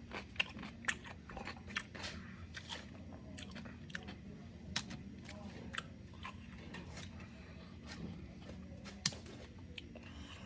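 A person chewing a crunchy pickle chip, with many sharp, irregular crunches and clicks.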